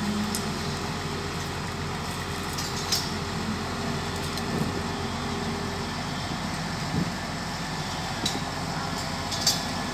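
XCMG QY100K truck crane's diesel engine running steadily while the crane holds a lifted steel roof frame. A few short sharp clicks or knocks sound over it, about three, seven and nine and a half seconds in.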